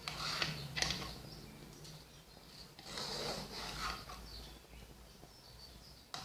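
A kitchen utensil knocking and scraping against a cooking pot as foam is skimmed off the simmering remedy. There are two sharp knocks about a second in, then a longer scrape around the middle.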